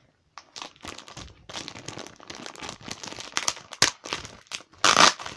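Plastic packaging around a graphic novel being crinkled and pulled open by hand: a dense run of crackles, with a louder burst near the end.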